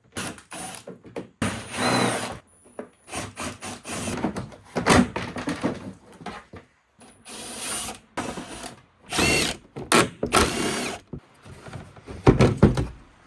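Cordless impact wrench backing out bolts during an engine teardown, run in several short bursts, each with a whine that winds up and down. Clicks and clatter of parts and tools come between the bursts.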